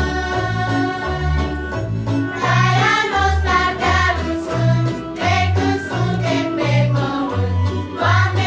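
Children's choir singing a song together in long held notes, over an instrumental accompaniment with a bass line that steps between notes about twice a second.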